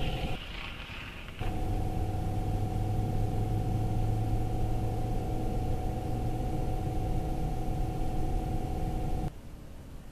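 Diesel locomotive engine running, a steady hum with several held tones, heard through a trackside camera's live audio feed. The sound drops out briefly near the start and cuts off abruptly about a second before the end.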